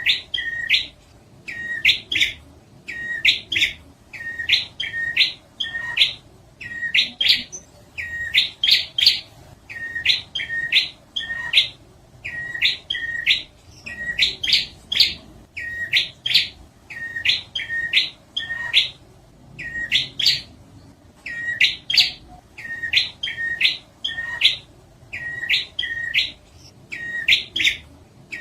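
Prinia (prenjak) song: a short phrase of sharp, quickly rising and falling chirping notes, repeated over and over about once a second.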